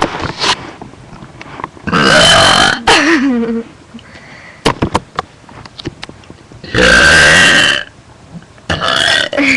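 Two long, loud forced burps from a girl, about five seconds apart, each lasting about a second.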